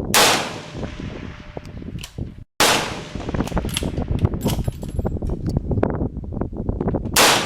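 Three shots from an AIA M10-B2 bolt-action match rifle in 7.62x51mm (.308): one at the very start, one about two and a half seconds in, and one near the end, each ringing out briefly. Wind buffets the microphone between the shots.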